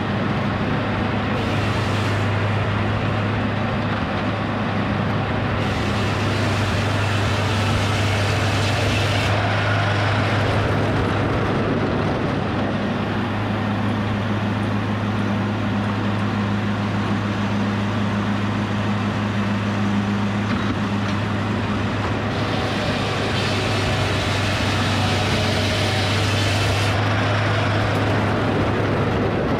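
Edmiston hydraulic circle sawmill running steadily, its power unit giving a constant low hum, with the circular blade cutting beetle-killed red oak in two stretches of several seconds that add a louder, higher hiss over the hum.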